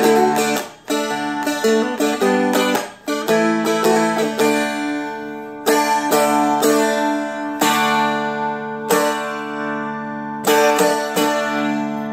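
Seagull Merlin played with a pick: a melody picked over ringing drone strings, with several full strums. It ends on a last pair of strums a little past ten seconds in that are left to ring and fade.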